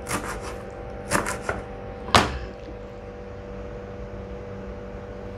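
A knife chopping parsley on a plastic cutting board: a few quick chops at the start and again about a second in, then one sharper single knock just after two seconds. A faint steady hum runs underneath.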